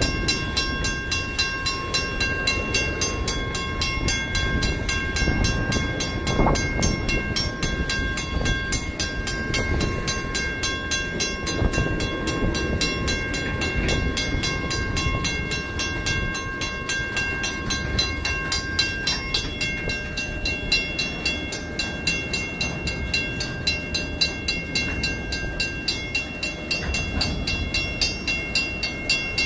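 Freight cars rolling through a grade crossing, their wheels rumbling and clacking on the rails. Over them the crossing's WCH mechanical bell rings in fast, even strokes.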